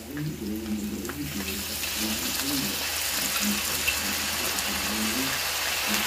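Raw chopped chicken dropped into hot oil in a wok, sizzling, the sizzle growing louder from about two seconds in as the meat hits the oil, with a metal spatula stirring.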